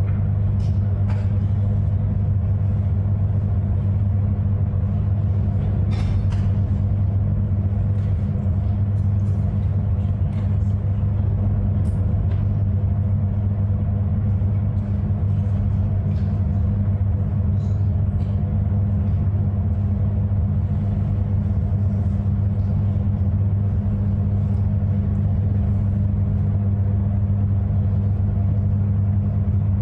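A steady low hum that stays unchanged throughout, with a few faint clicks and knocks over it.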